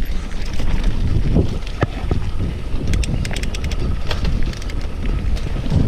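Wind buffeting the microphone over the rumble and rattle of a mountain bike riding down a rough dirt trail, with a few sharp clicks and knocks from bumps along the way.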